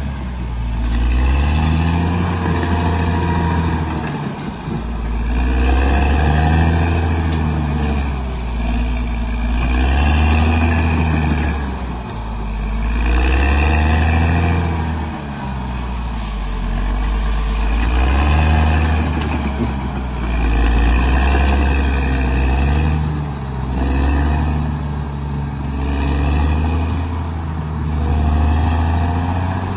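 Bulldozer's diesel engine working under load, its pitch rising and falling over and over, every two to four seconds.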